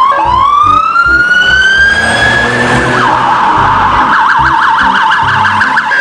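Police car siren: one long wail rising in pitch, then about three seconds in it switches to a fast yelp, rising and falling about five or six times a second.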